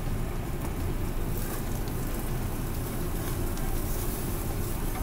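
Marinated meat sizzling on a tabletop yakiniku grill, over a steady low rumble.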